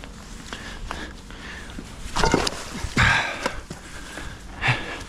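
Scuffling knocks and scrapes of people moving on the bank and handling gear, with two louder thumps about two and three seconds in.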